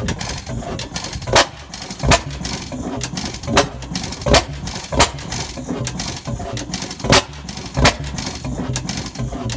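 A 15 hp Reid single-cylinder stationary gas engine with twin flywheels running slowly, firing a sharp exhaust beat about every three-quarters of a second with lighter mechanical clatter between beats. There is a longer gap between beats near the middle.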